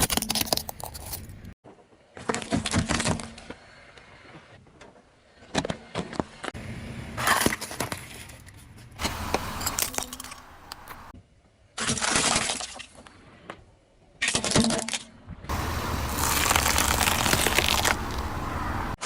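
Objects cracking and breaking under a car's tyres, in a run of separate bursts that start and stop abruptly, the last one longest.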